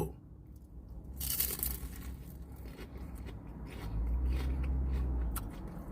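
A bite into a crispy fried spring roll: a short, sharp crunch about a second in, followed by fainter crackling as it is chewed.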